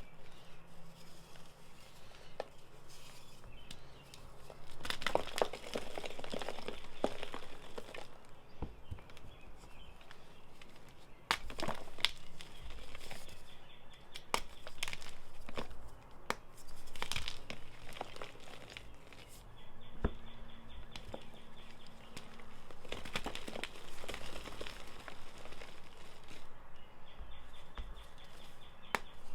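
Pressed Ader blocks coated in holi powder and glitter being crushed, crunching and crumbling in irregular bursts with sharp cracks.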